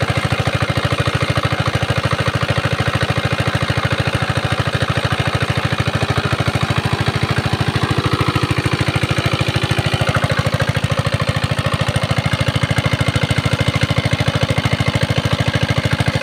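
Small single-cylinder diesel engine driving an irrigation water pump, running steadily with an even, rapid firing beat.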